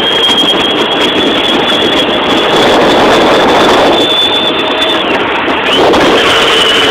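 Modified Fisher-Price Power Wheels Escalade driving on asphalt: its new electric motors and gearboxes give a loud, high steady whine over the rumble of hard plastic wheels on the road. The whine breaks off about five seconds in and picks up again a moment later.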